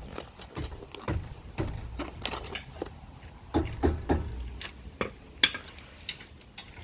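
Brake pads and hand tools being handled: irregular metal clinks and knocks, with a sharp click about five seconds in.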